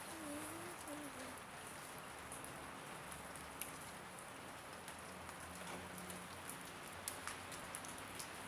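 Faint, steady patter of water with a few scattered drips, typical of thawing snow and meltwater.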